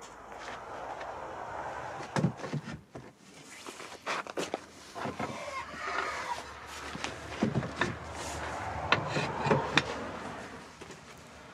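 Wooden shingle pieces knocking and scraping against each other and the wooden roof as they are laid by hand: a run of irregular sharp knocks with rustling between them.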